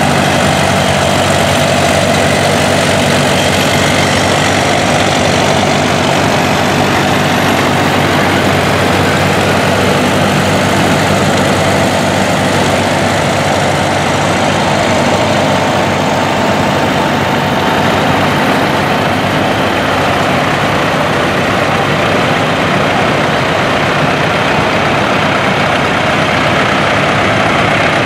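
Engines of several vintage farm tractors running at low speed as they pass one after another. The sound is steady and loud throughout.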